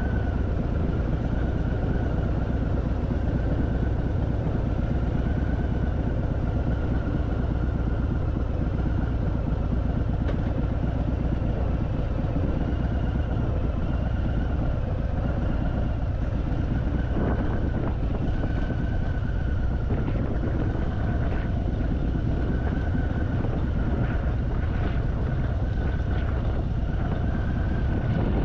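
Harley-Davidson Fat Boy's V-twin engine running steadily under way, a continuous deep rumble with road noise.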